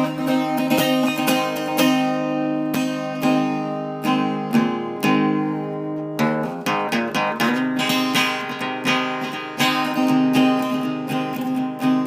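Outro music: an acoustic guitar strummed and picked in a steady rhythm.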